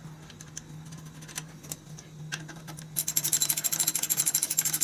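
A ratchet mechanism clicking rapidly and evenly, about ten clicks a second, starting about three seconds in, over a steady low hum. A few scattered clicks and knocks come before it.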